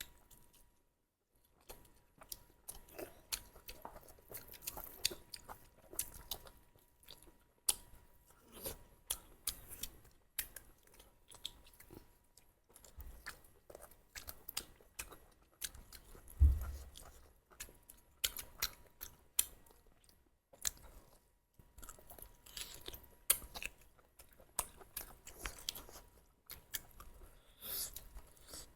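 Chewing and crunching while eating spicy duck curry: a steady run of small sharp crackles and clicks, with one dull thump about halfway through.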